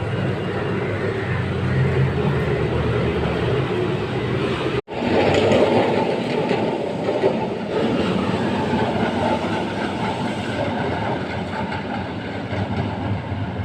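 Kolkata electric tram running on its rails, a continuous rumble with wheel and rail noise. The sound drops out for an instant about five seconds in, then returns louder.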